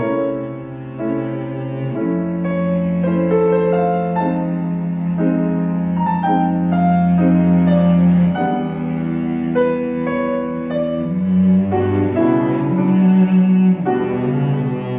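Cello and grand piano playing a slow classical duet, the cello bowing long held notes over piano chords.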